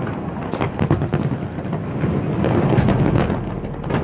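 Fireworks display: shells bursting in quick succession, a run of bangs and crackles.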